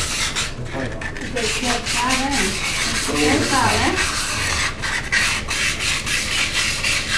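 Sandpaper rubbed by hand inside the bore of a Yamaha YBR Factor 125 cylinder liner, a rasping scrape in quick repeated strokes: light sanding to seat the hone marks left by the rebore.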